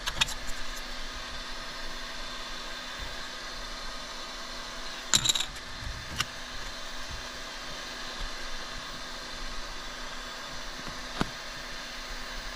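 3D printer running: a steady fan hum with a few faint steady tones, and a brief rattle about five seconds in, with single clicks about six and eleven seconds in.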